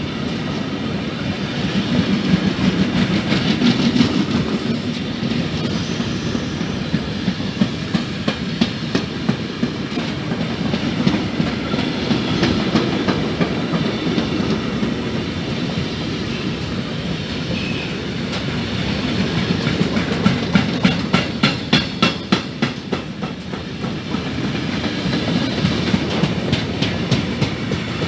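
Loaded container freight train of articulated Sggmrss wagons passing close by: a steady rolling rumble, with the wheels clattering in regular runs of clicks, about three a second, twice.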